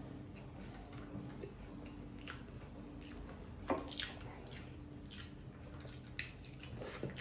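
Soft, faint chewing and wet mouth sounds of a person eating noodles, with small scattered clicks from wooden chopsticks against a wooden bowl and one louder mouth sound a little before the middle.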